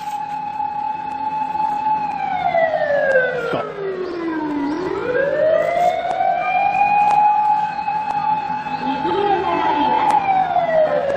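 Siren wailing. Its held tone slides slowly down and back up, holds, then starts down again near the end. A short, lower wavering sound joins it about nine seconds in.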